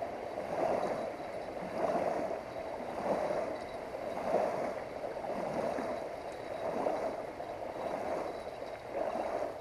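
Small waves lapping and washing onto a sandy riverbank, swelling and falling back about once every second or so.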